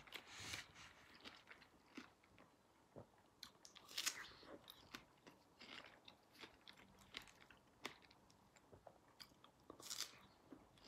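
Faint, irregular mouth sounds of a person biting and chewing fresh strawberries.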